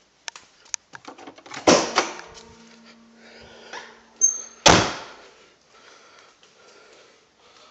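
Clicks and rattles, then two loud slams about three seconds apart, with a brief high squeak just before the second, like a door or car hood being worked.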